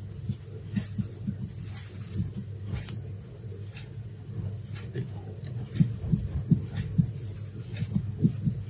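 Whiteboard marker writing on the board: irregular soft taps and strokes with low knocks, coming a little faster and louder in the second half.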